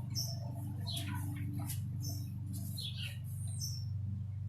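Small birds chirping and twittering in many short, quick calls over a steady low hum.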